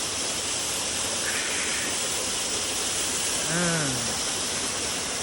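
Waterfall rushing as a steady, even roar of water, with a short voice sound about three and a half seconds in.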